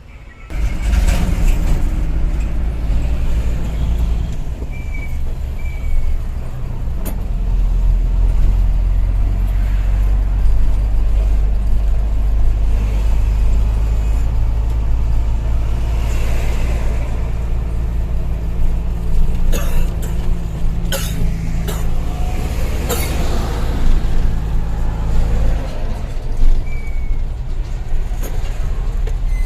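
Hino Ranger dump truck's diesel engine running under way: a loud, steady low drone that starts abruptly about half a second in. A few short sharp sounds break in between about nineteen and twenty-three seconds in.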